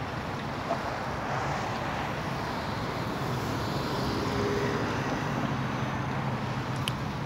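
Inline skate wheels rolling steadily over rough asphalt: a continuous, even rolling noise.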